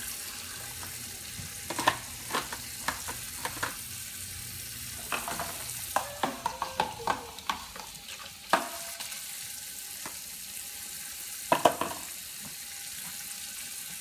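Kitchen tap running steadily into a stainless-steel sink while plastic containers and dishes are rinsed under it. Irregular knocks and clatter of dishware come in several clusters.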